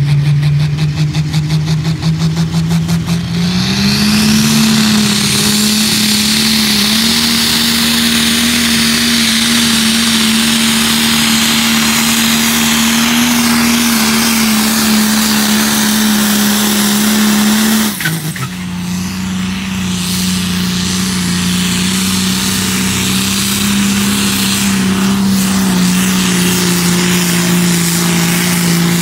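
Tractor engine pulling a sled, running hard at a steady pitch. The pitch climbs about three and a half seconds in and holds, then drops suddenly about eighteen seconds in and settles a little lower.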